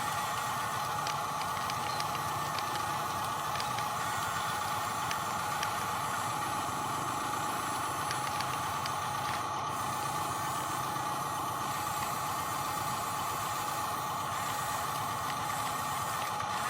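Small electric motor and gearbox of a radio-controlled construction machine whining steadily, with faint scattered ticks and rattles.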